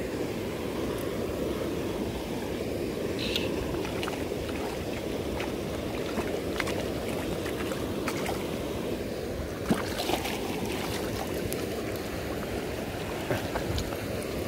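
Fast, shallow river current rushing steadily close by, with a few light clicks about ten seconds in.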